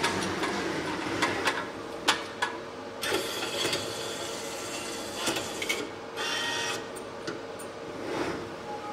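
A machine mechanism working in short bursts of motor whine, with scattered clicks and knocks over a faint steady hum.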